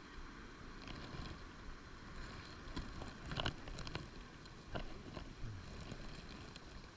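Low rustling and wind on a body-worn camera, with a few short clicks and knocks of handling, the loudest about three and a half seconds in and another near five seconds.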